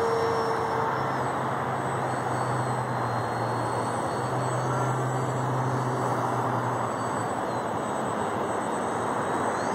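Brushless electric motor (BlueWonder 1300Kv) spinning a GWS 8060 propeller on a small foamboard RC plane in flight: a steady buzzing drone with a thin high whine that shifts up and down in pitch as the throttle changes.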